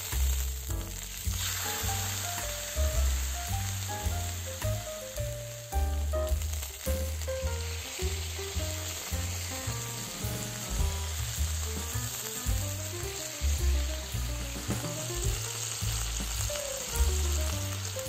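Chicken leg steaks frying in oil in a cast-iron skillet over a wood fire, a steady sizzle that comes on strongly about a second and a half in. Background music with a repeating bass line plays along.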